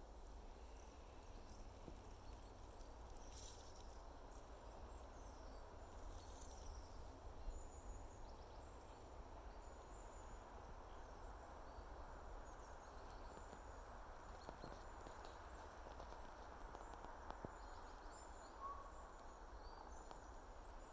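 Faint outdoor nature ambience: a steady soft hiss with a low rumble, and many short, high chirps from small creatures scattered throughout.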